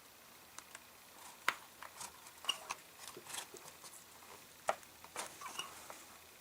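Faint, irregular clicks and small knocks of hands working a rubber-and-plastic primer bulb into its seat on a small chainsaw's carburetor, with two sharper clicks about a second and a half in and near the five-second mark.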